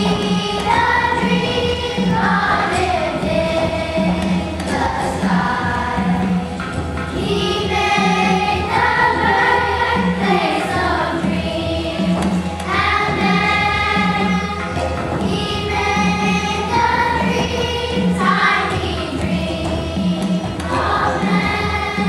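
Music with a choir of voices singing a melody over a steady low beat, accompanying a stage dance.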